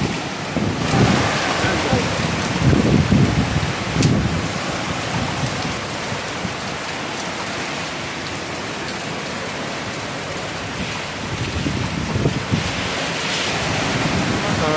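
Hurricane Irma's wind and heavy rain, a loud steady rush. Gusts rumble on the microphone in the first few seconds and again near the end.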